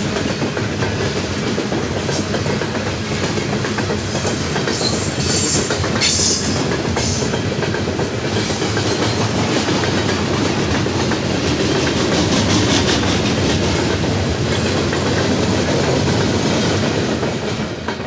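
Loaded coal hopper cars of a Norfolk Southern freight train rolling past: steady wheel-and-rail noise with wheels clicking over rail joints, and a few brief high-pitched wheel squeals about five to seven seconds in. The sound falls away sharply as the last car passes, right at the end.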